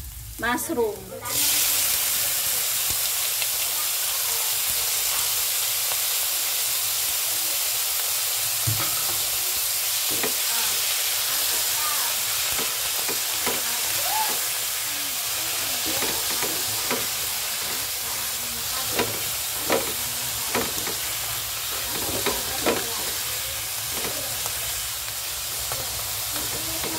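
Sliced mushrooms dropped into hot oil with browned garlic, setting off a loud sizzle about a second in that carries on steadily. A spatula stirs and scrapes the pan throughout, adding short scraping clicks.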